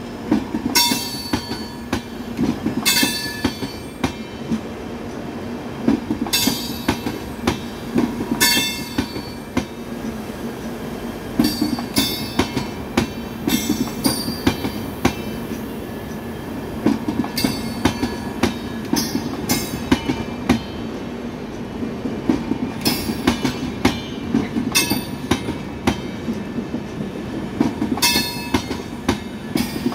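LHB passenger coaches rolling past with a steady rumble. Clusters of wheel clacks over the rail joints come every two to three seconds, each with a brief metallic ring.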